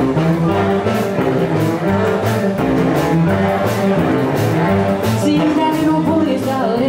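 Live blues band playing an instrumental passage: electric and acoustic guitars over a stepping upright bass line and drums keeping a steady beat.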